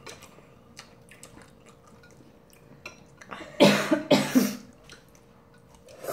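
A woman coughs twice in quick succession, about three and a half seconds in.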